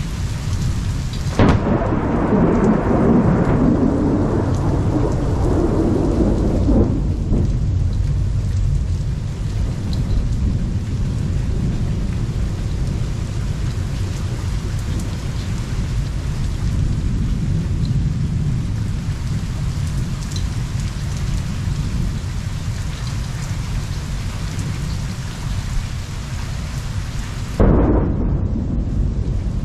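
Thunderstorm: steady rain with a low rumble of thunder throughout. A sudden thunderclap comes about a second and a half in and rolls on for about five seconds, and another sudden clap breaks near the end.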